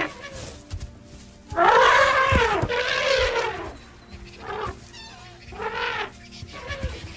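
African elephant calls during an adult cow's attack on a calf. About a second and a half in comes one long, loud call that rises and then falls in pitch. Three shorter, fainter calls follow. Soundtrack music hums steadily underneath.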